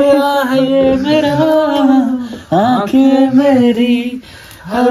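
A song with a sung vocal holding long, wavering notes, breaking off briefly near the end.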